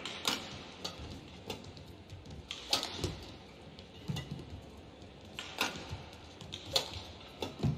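Badminton rally: rackets striking a feather shuttlecock back and forth, sharp hits about once a second with uneven spacing, and a few dull thuds of footfalls on the court.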